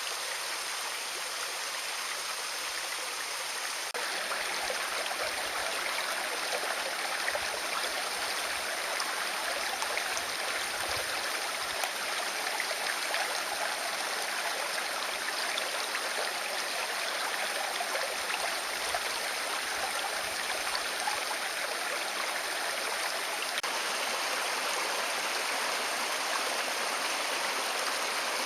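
Mountain stream rushing steadily over rocks, a little louder from about four seconds in.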